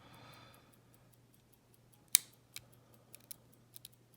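Lock pick working the pin tumblers of a Brady 71/40 padlock: one sharp click about two seconds in, then a few fainter ticks. The pick clicked a pin that did not set.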